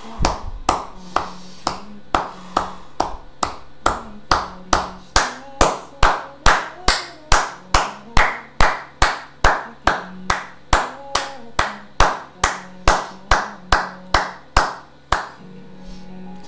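A person clapping his hands in a steady rhythm, about two claps a second, stopping about 15 seconds in.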